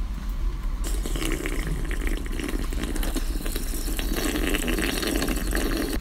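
A drink being loudly slurped, with a gurgling sound that starts about a second in and keeps on at an even level.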